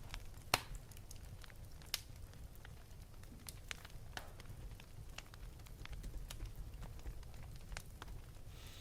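Scattered light clicks and taps from a computer keyboard, irregular and spaced out, with a stronger click about half a second in, over a faint low hum.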